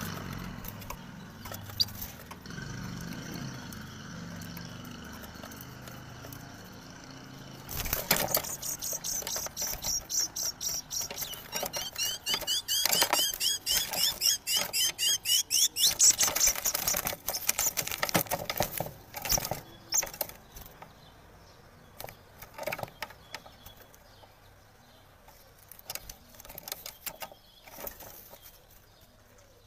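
Caged European goldfinch flapping wildly against the wire bars of its cage in panic, a dense flutter and rattle that starts about eight seconds in. In the middle there are rapid, shrill repeated bird calls, the loudest part. The flutter then dies away into a few scattered knocks.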